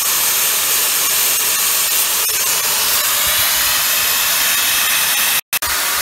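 Steam hissing steadily from the outlet pipe of a home-built rocket-stove steam boiler, with a split-second gap near the end.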